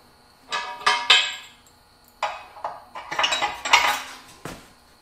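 Metal pins being fitted back into the head of a B&W Companion fifth-wheel hitch: several bursts of metallic clinking and rattling, with a single sharp knock near the end.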